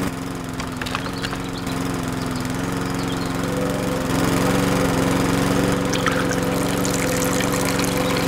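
Small electric motor driving a miniature sugarcane juice press, running with a steady hum. It gets a little louder about four seconds in, as cane is fed through the rollers.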